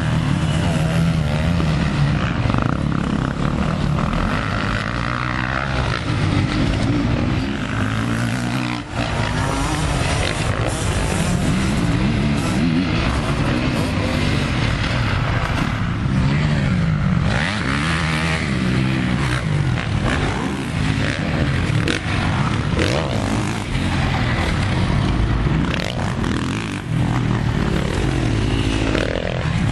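Motocross dirt bike engines revving, the pitch climbing and dropping again and again as the bikes accelerate, shift and ease off around the track.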